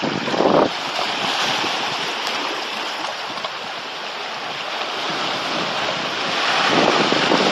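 Small waves washing over a rocky shore and through tide pools, with wind buffeting the microphone. A louder surge comes just after the start, and the wash swells up again near the end.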